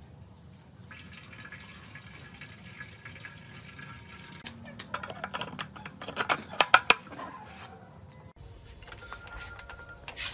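Liquid being poured from a plastic bottle into the restored R190 single-cylinder diesel engine's tank, a steady trickling pour, followed by a short run of sharp knocks and clatter about five to seven seconds in.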